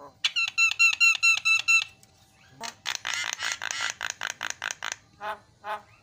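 Javan myna calling in a varied string: first a quick run of sharp repeated whistled notes, about five a second, then a harsh rapid chatter, then slower separate notes about two to three a second.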